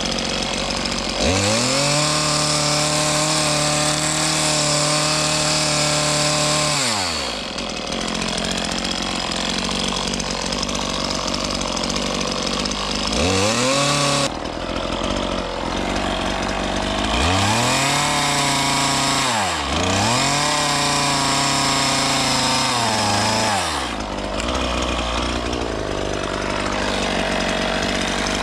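Stihl chainsaw idling and revving up to full throttle as it cuts into wood, then dropping back to idle between cuts. There is a long cut about a second in, a short one around the middle, and two more close together in the second half.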